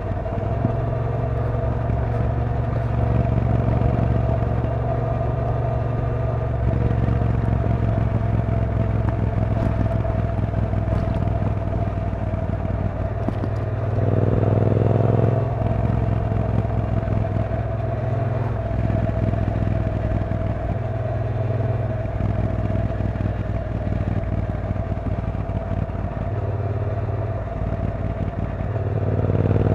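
2016 Triumph T120's 1200 cc parallel-twin engine running steadily at cruising speed. It rises in pitch under acceleration about halfway through and again near the end.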